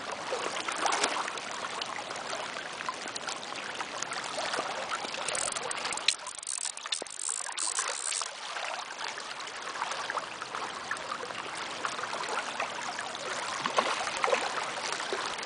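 Steady rush of flowing river water. Sharper splashy hissing comes in between about five and eight seconds in.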